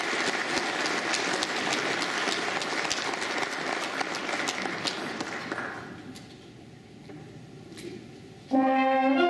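Applause that fades out over the first five or six seconds, a short lull, then a brass ensemble of tuba, euphoniums, horns, trombones and trumpets comes in together on a loud held chord near the end.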